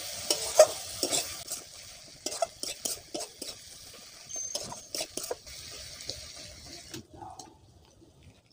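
Long metal spatula scraping and clinking against a metal kadai in quick, irregular strokes while stirring a thick frying masala; the strokes thin out near the end.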